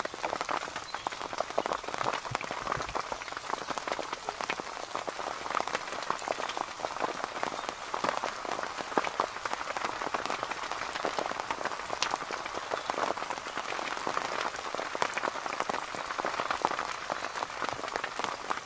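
Rain falling on the fabric of a rooftop tent, heard from inside: a steady, dense spatter of drop taps with an occasional louder single drop.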